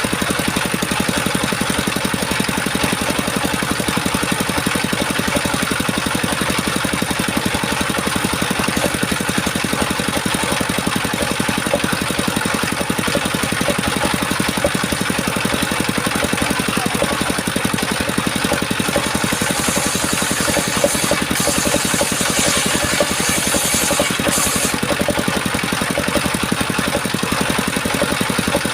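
Engine of a homemade circular sawmill running steadily with an even, fast firing rhythm. A brighter, higher hiss joins it for several seconds past the middle.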